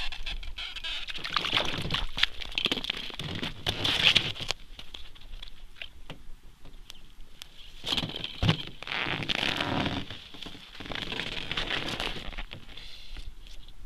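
Crunching, scraping and rustling of snow, ice and winter clothing as an ice angler pulls a perch up through the hole and handles it. The noise comes in irregular bursts of crackles, busiest in the first few seconds and again in the second half.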